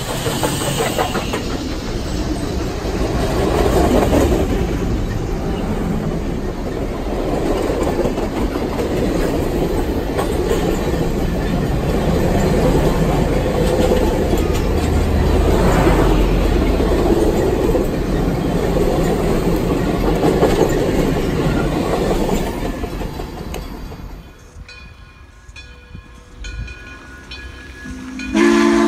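Union Pacific Big Boy 4014 steam train passing close by: the locomotive, then a long string of passenger cars rolling past with wheels clicking over the rail joints. Near the end the rolling noise drops away and a steam locomotive's whistle starts to blow.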